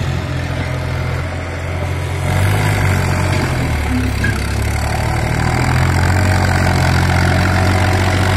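Preet 955 tractor's diesel engine working hard while towing a trolley up and over a dirt mound. It gets louder a little over two seconds in, the revs dip around four seconds, then climb and hold louder toward the end.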